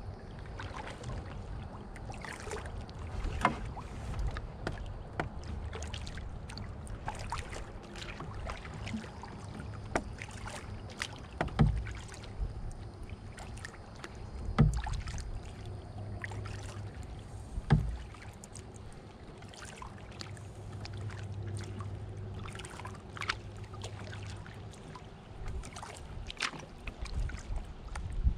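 Canoe being paddled: the paddle splashing and dripping with many small clicks, and a few louder knocks about three seconds apart midway through.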